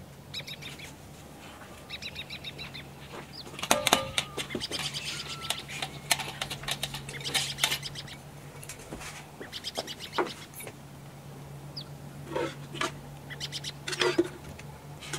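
Metal ladle clinking and scraping against aluminium cooking pots while sauce is ladled over the rice, in scattered sharp clinks. A few short chirping calls and a steady low hum sit underneath.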